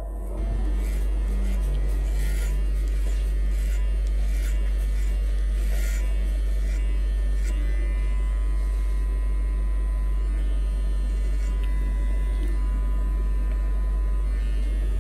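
JRL cordless hair clipper running with a steady buzz as it cuts hair over a comb.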